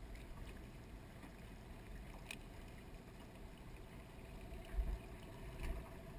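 Faint steady whir of a fishing reel winding a lure back in, over water lapping at the aluminium boat's hull, with a few light clicks and a low knock about five seconds in.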